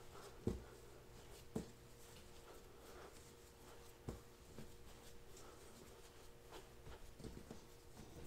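Hands kneading floury pizza dough on a wooden tabletop, faint: a few soft thuds as the dough is pressed and turned, with light rubbing and rustling between them.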